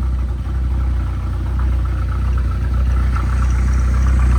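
Freshly overhauled 2.3-litre turbocharged car engine idling steadily at a low, even hum; the builder judges it running well after its new parts.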